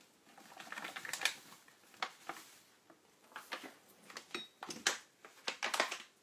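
Flour scooped with a drinking glass and tipped into a stainless steel stand-mixer bowl: irregular light clicks, taps and scrapes of the glass against the bag and the bowl, with a short high ring about four seconds in.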